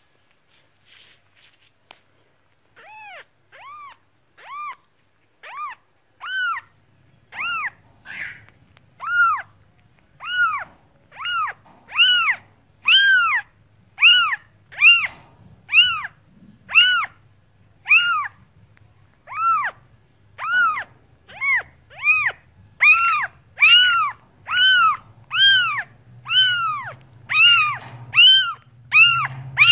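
A cat meowing over and over in short high calls that rise and fall in pitch, about one a second. The calls start a few seconds in and grow louder and come more quickly towards the end, over a low steady hum.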